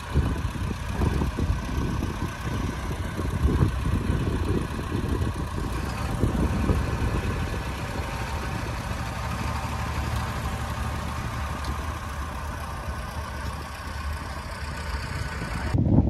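Large modern tractor's diesel engine running steadily under load as it pulls a reversible plough through wet soil.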